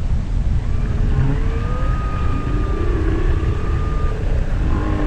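Humpback whale song recorded underwater. A short rising call comes about a second in, then a long high held note lasting nearly three seconds over lower warbling notes, and a quick run of pulsed notes near the end, all over a steady low rumble.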